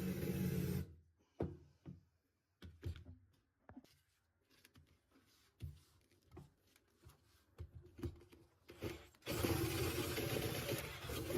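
A woodworking power tool's motor runs steadily and cuts off about a second in. Then come scattered light knocks and scrapes of workpieces being handled, and the motor starts up again near the end.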